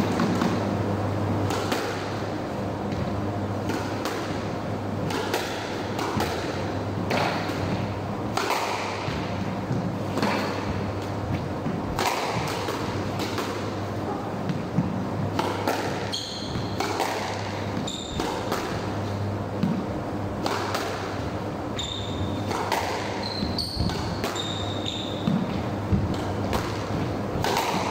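Squash rally: the ball struck by rackets and smacking off the walls and floor at irregular intervals, echoing in the enclosed court. Short high shoe squeaks on the wooden floor come in the second half, over a steady low hum.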